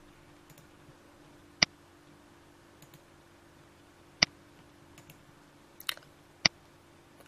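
Computer mouse clicks: three sharp single clicks a couple of seconds apart, and a fainter pair just before the last, over a faint steady hum.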